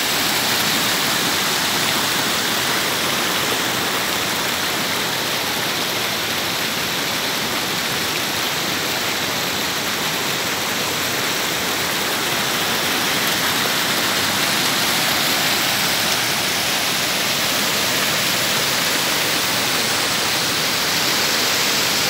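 Cascading waterfalls and rapids rushing over rock slabs: a steady, even roar of falling water that does not change.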